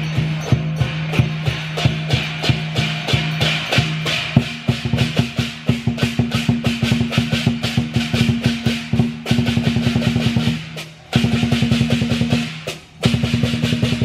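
Lion dance percussion: a Chinese drum beaten with clashing cymbals in a fast, steady rhythm. The beat quickens about four seconds in and breaks off twice for a moment near the end.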